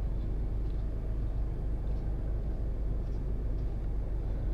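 Outdoor street ambience: a steady low rumble with a faint even hiss above it.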